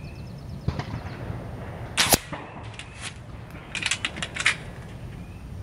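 A .25-calibre Kral Arms Puncher Jumbo PCP air rifle, fitted with an Altaros regulator, fires once about two seconds in with a sharp report. It is followed by a run of metallic clicks and clacks as the action is worked to load the next pellet.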